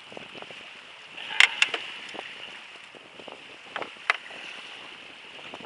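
Steady hiss of wind and water around a small fishing boat, broken by a few sharp knocks about a second and a half in and again near four seconds.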